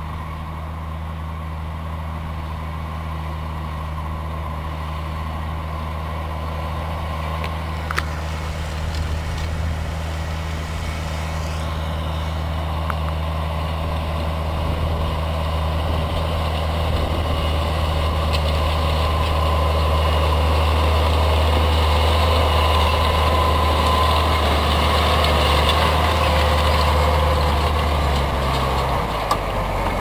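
New Holland T7060 tractor's six-cylinder diesel engine running steadily under load while pulling a plough, a low drone that grows gradually louder. Near the end the engine note drops in pitch.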